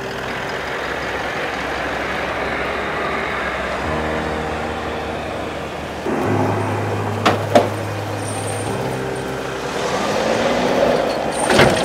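4WD vehicle driving on a dirt track, with steady engine and tyre noise, under background music whose low sustained chords change every few seconds. Sharp knocks come twice about seven seconds in and once more near the end.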